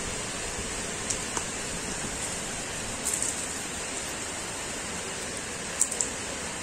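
Light plastic clicks and clacks as toy train track sections are handled and snapped together on a tiled floor: a couple about a second in, a short cluster around three seconds, and the sharpest click near the end. A steady hiss runs underneath.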